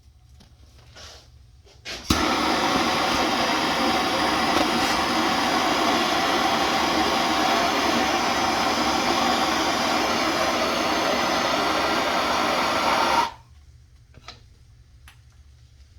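Handheld soldering torch clicking alight about two seconds in, then a steady hissing flame for about eleven seconds while heating copper pipe joints for soldering, shut off abruptly near the end.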